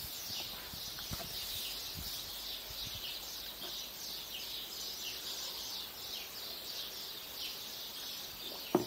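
Small birds chirping steadily in the background, many short, high, falling chirps overlapping. Just before the end comes a brief louder sound.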